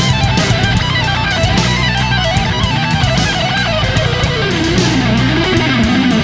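Background music: a rock track with electric guitar, bass and a steady drum beat.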